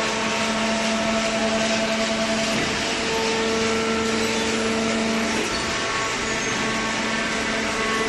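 Hydraulic horizontal baler running: a steady machine hum and hiss with several steady tones, which shift about three seconds in and again about five and a half seconds in.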